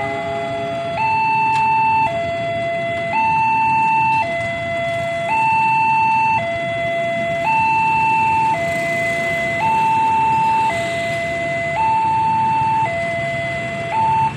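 Railway level-crossing warning alarm sounding a steady two-tone signal, switching between a lower and a higher tone about once a second. It warns road traffic to stop while a train passes.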